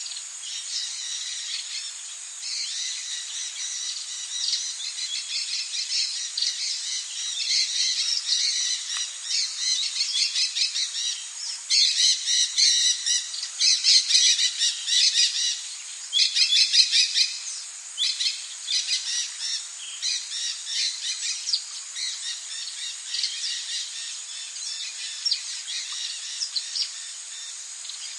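Forest ambience: birds chirping in quick runs over a steady high insect drone. The chirping is busiest and loudest in the middle stretch, then thins out again.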